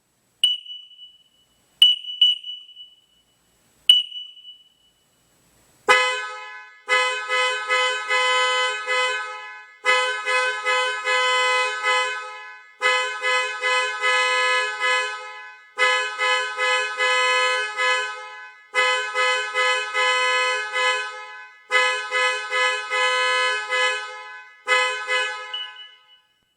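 Car alarm going off: three short single-tone chirps about two seconds apart, then a loud honking blare pulsing about three times a second, in bursts of about three seconds with short breaks, stopping near the end.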